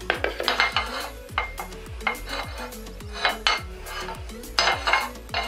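A plastic mixing bowl being handled on a kitchen counter: a series of irregular knocks, clatters and scrapes.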